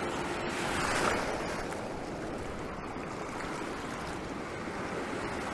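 Sea waves washing on the shore with wind: a steady rushing hiss that swells slightly about a second in.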